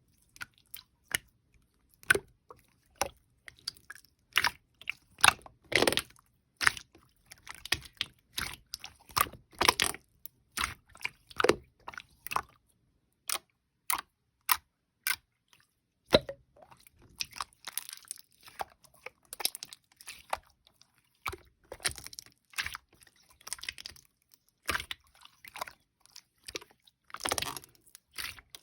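Small objects and stationery being handled on a desk: a long, irregular run of sharp clicks and taps with short rustling and scratching sounds in between, busier in a few stretches.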